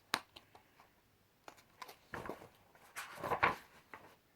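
Handling noises: a sharp click just after the start, then two short rustling scrapes about two and three seconds in.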